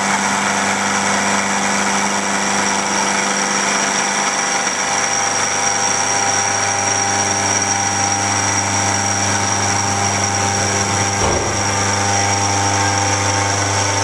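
XYZ SMX3500 CNC milling machine running steadily, its end mill cutting a bronze casting: a constant high spindle whine over a low motor hum.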